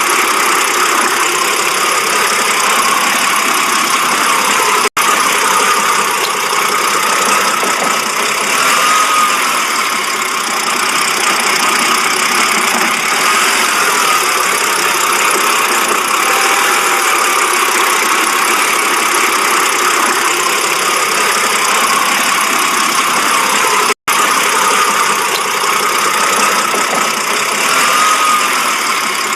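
BMW engine idling roughly, its note wavering unevenly instead of holding steady: the rough-idle fault the car is being shown for.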